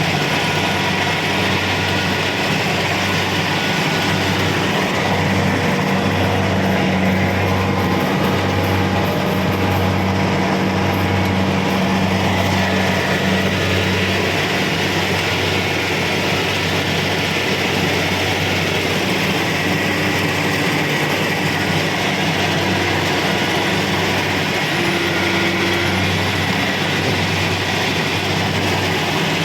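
Kubota DC-70 Pro combine harvester running steadily under a working load: a constant low engine hum under a dense mechanical rush.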